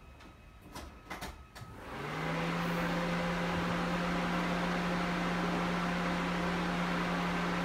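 A few light clicks, then about two seconds in an electric radiator cooling fan switches on and runs with a steady whine over a hiss. There is no cranking rhythm from the engine.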